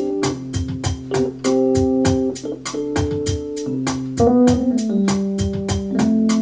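Keyboard music: held, organ-like chords over a steady, quick beat, the chords shifting several times.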